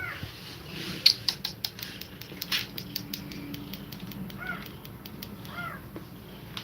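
Kittens mewing in short, high, rising-and-falling calls, three times, with a run of sharp clicks and smacks in between, the loudest a little after a second in.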